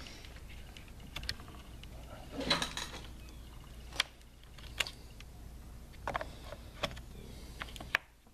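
Scattered clicks and knocks from handling a Stihl MS 251 chainsaw, turning it over and working its plastic fuel cap open, over a low steady hum.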